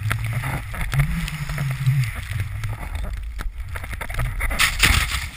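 Snowboard riding fast through deep powder, heard on a handheld pole-mounted action camera: wind buffets the microphone in a steady low rumble over the hiss of the board in the snow, with scattered sharp knocks from the pole.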